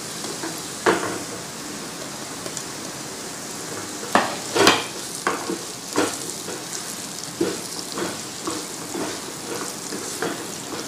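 Cubed raw mango frying and sizzling in hot oil with fried onion and spice masala, stirred in with a spatula that knocks and scrapes against the pan several times, loudest about four to five seconds in.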